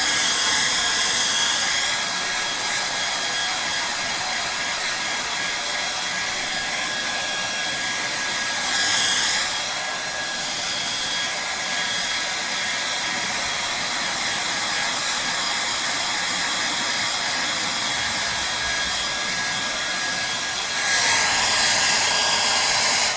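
Handheld electric hair dryer running, a steady rush of blown air with a faint high whine in it. The airflow swells louder briefly about nine seconds in and again near the end, then the dryer cuts off abruptly as it is switched off.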